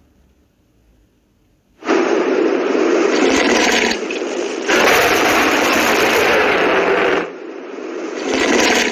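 Loud, noisy sound effect of a TikTok Live 'Lion' gift animation, starting abruptly about two seconds in and loudest in the middle.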